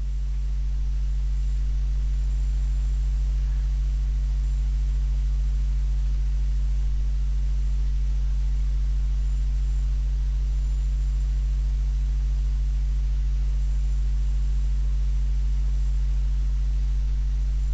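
Steady electrical mains hum, a low drone with overtones, over a faint even hiss and a thin high tone that wavers slightly.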